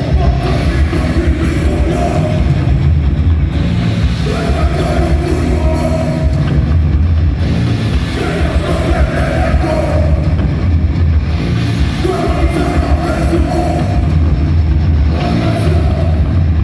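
Live rock band playing: electric guitars, bass and drums with heavy low end, and a singer's vocals coming and going in phrases.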